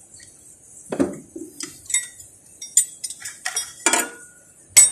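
Steel wrenches clinking and clattering against the metal parts of a forklift's steering column. It is a run of irregular, sharp metallic clinks starting about a second in, some with a short ring, and the loudest comes near the end.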